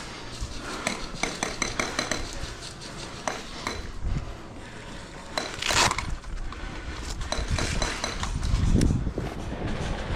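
Light clinks and rattles, as of gear jostling, with a louder sharp noise about six seconds in and a low rumble near nine seconds.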